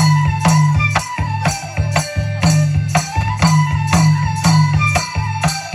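Live Bodo folk music: bamboo flutes (sifung) play a gliding melody over a steady, even beat on a long barrel drum (kham), with metallic jingling on the beat.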